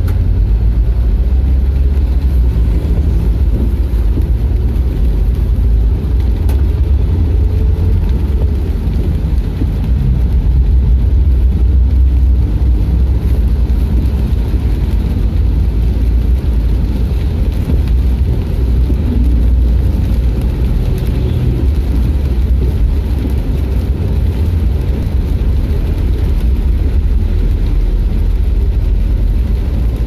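Low, steady rumble of engine and tyre noise, heard from inside the cabin of a vehicle driving on a wet road.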